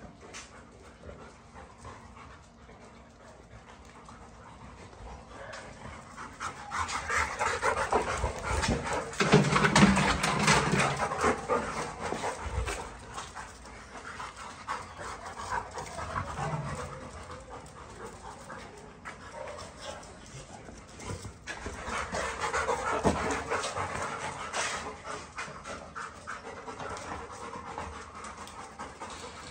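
Yellow Labrador Retrievers panting hard and fast, swelling in two long spells: the louder about a third of the way in, the other around three-quarters through.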